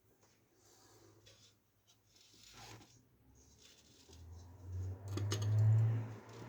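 Computer parts and screws being handled: light rustling and small clicks, with a low hum swelling in the last two seconds and peaking just before the end.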